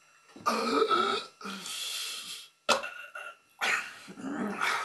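Gross open-mouthed eating noises from a man with a mouthful of pizza: throaty gurgling vocal sounds in two bouts with slurping and smacking between them, and one sharp smack about halfway through.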